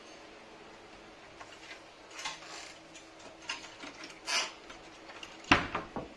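A door's latch and lock being worked: scattered metallic clicks and short scraping rattles, then a sharp clack about five and a half seconds in, followed by a few smaller clicks.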